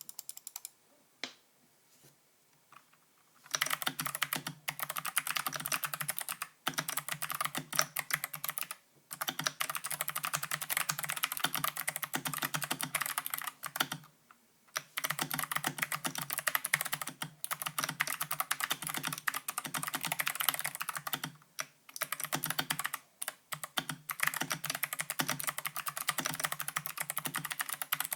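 Typing on a Flesports MK870 mechanical keyboard with clicky Kailh Box Pink switches and Drop MT3 keycaps. A few single key presses come first, then rapid, steady typing starts about three and a half seconds in, broken by several brief pauses.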